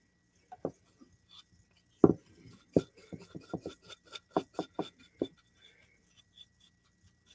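Light knocks and taps of a small wooden board and paintbrush handled while the board's edges are painted: a few separate sharp taps, the loudest about two seconds in, then a quick run of small ticks for about two seconds.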